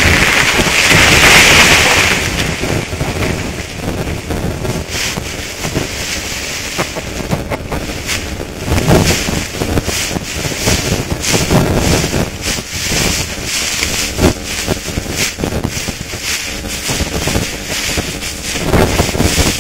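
Wind buffeting the phone's microphone, strongest in the first two seconds, with irregular rustling and crunching from walking through dry grass and dead leaves.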